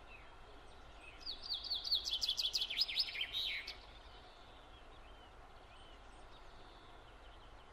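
A songbird singing: one song of about two and a half seconds, a quick run of high notes falling in pitch, over faint background hiss, followed by a few faint chirps.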